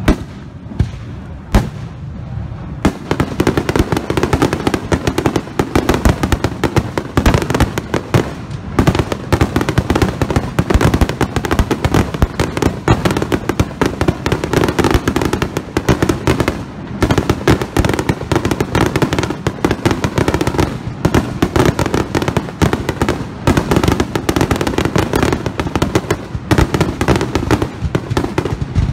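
Aerial firework shells bursting. A few single bangs come first, then from about three seconds in a dense, rapid barrage of bangs and crackling keeps going.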